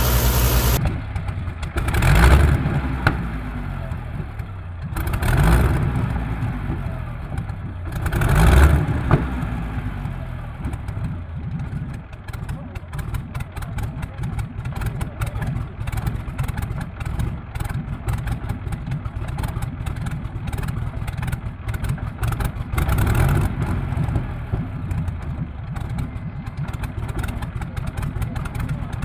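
Rolls-Royce Griffon V12 aero engine on a trailer stand being started: three loud surges a few seconds apart as it catches, then running with a rapid, uneven firing patter and one more rise in revs near the end.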